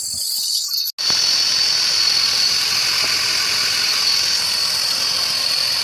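A power tool's motor running steadily with a high whine over a hiss. It cuts in abruptly about a second in, after a brief dropout.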